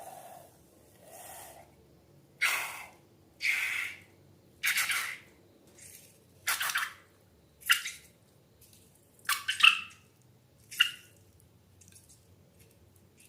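Wet slime squelching and plopping in a string of short separate bursts, about one every second or so, the later ones sharper.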